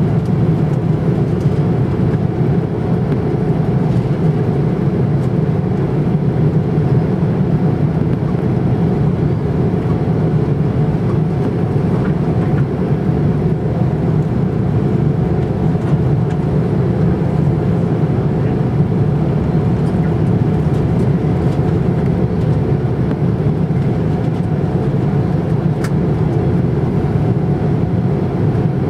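Cabin noise of an Airbus A330-300 on the ground, heard from inside over the wing: a steady low rumble from its Rolls-Royce Trent 700 engines at taxi power, with a faint steady tone above it.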